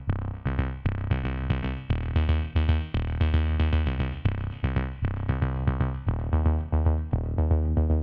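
Electronic background music with a steady drum-machine beat and synthesizer notes.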